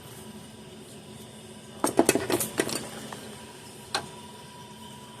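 Small metal hand tools and parts clinking and clattering as they are handled and set down: a quick cluster of clinks about two seconds in, then a single click near four seconds.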